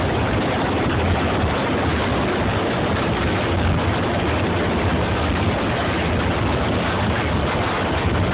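Mil Mi-8-family twin-turbine helicopter hovering close overhead: a loud, steady rotor and turbine noise with a heavy low thrum.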